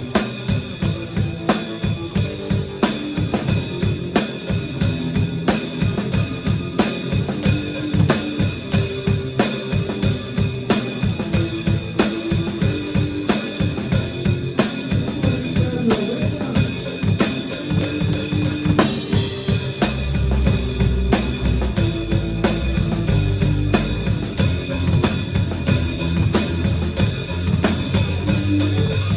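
Live band playing an instrumental stretch of a song, led by a drum kit beating fast and dense with bass guitar under it. A heavier low bass comes in about two-thirds of the way through.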